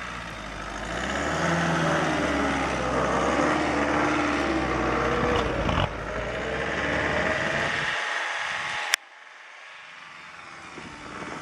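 Suzuki Jimny's engine revving hard under load while it tows a heavier Range Rover on a strap, its pitch wavering up and down. About nine seconds in there is a sharp click, and the sound drops to a much quieter engine hum.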